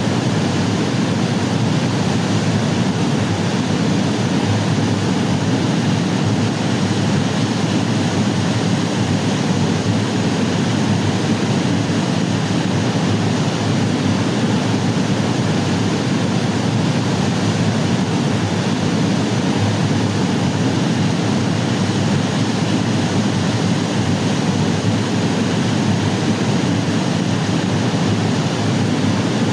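Waterfall pouring, a steady rushing noise of falling water that doesn't change.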